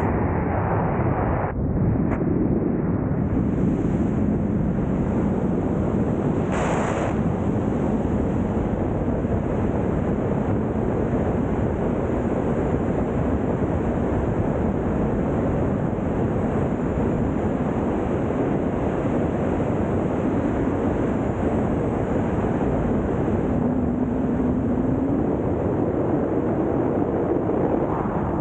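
Freefall airflow rushing over the microphone of a helmet-mounted camera during a wingsuit flight: a steady, heavy wind noise that buffets the microphone throughout.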